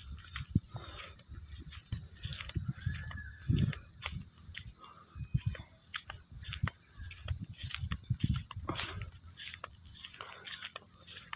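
Steady high-pitched insect chorus, cricket-like, with irregular low thumps and rustles from footsteps and handling as someone walks through dry stubble.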